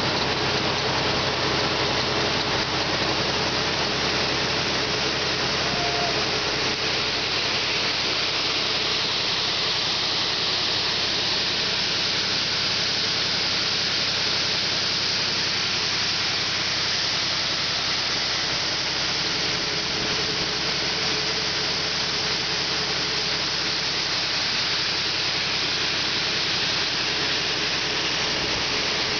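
Grain-handling equipment running steadily while beans flow: belt conveyors hum and a continuous stream of beans pours from a grain bin's unload spout onto the moving belt. It is an even hiss of flowing grain over a low machine drone, with no change in level.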